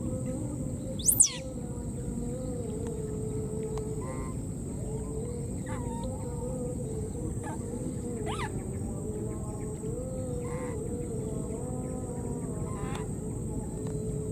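Short animal calls every couple of seconds over a steady low rumble, with one loud, very high squeal that falls quickly about a second in.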